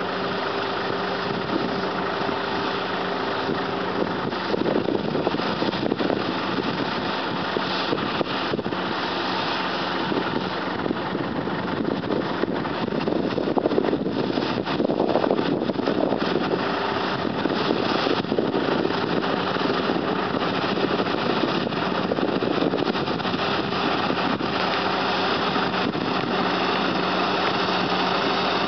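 Head-feed combine harvester running while harvesting rice: a steady engine hum with a busier rattling, rustling noise of the cutting and threshing. The rattling swells through the middle and eases toward the end.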